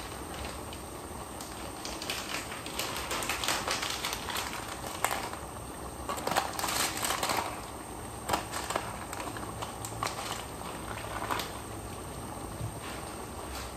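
Chicken asado cooking in a pan on the stove: a steady sizzle with irregular crackles and clicks, busier about three to eight seconds in.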